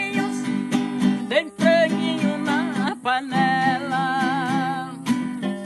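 A woman singing held, wavering notes over a strummed and plucked viola caipira, the Brazilian ten-string folk guitar. Her voice stops about five seconds in, leaving the strings playing on.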